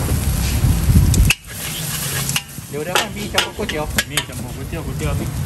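Metal spatula scraping and clanking against a wok as fried noodles and egg sizzle in it. The sharp scrapes come in a run from about two seconds in to past the four-second mark.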